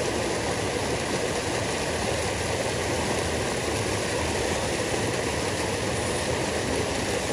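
Fast river water churning through a small cascade: a steady, even rush of whitewater.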